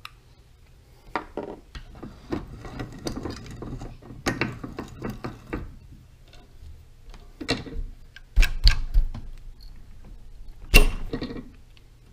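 Metal parts and hand tools handled at a bench vise: irregular clicks, taps and scrapes as a pressure washer pump head with brass fittings is worked on, with a quick run of three knocks about two thirds of the way in and the loudest knock near the end.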